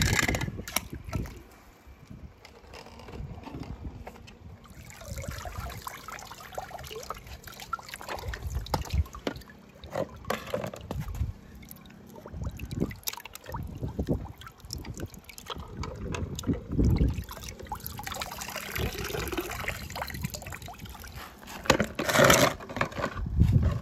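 Water splashing and trickling as small toy cars are dropped into a pool of water, with many small knocks and clicks. There are louder splashes about 17 seconds in and again near the end.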